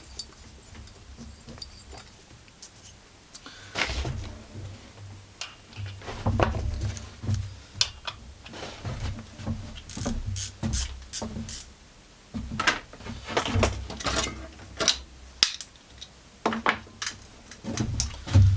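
Irregular metallic clicks and clatter of hand tools, such as wrenches, being handled.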